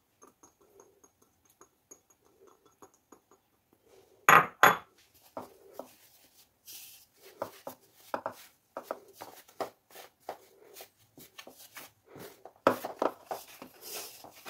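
A hand rubbing melted butter into flour in a large mixing bowl: soft rustling and scraping of the flour, with uneven taps and knocks against the bowl. There are two loud knocks about four seconds in.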